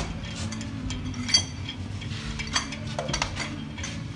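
Metal lug nuts clinking on the wheel studs as they are spun on by hand, with a few sharp metallic pings, over a steady low hum.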